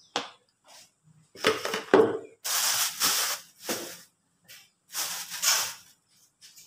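Kitchen handling sounds. A bowl and a plastic blender jug are set down on the counter with a few knocks about a second and a half in. Then come two short bursts of hiss-like noise, about three seconds in and again near the end.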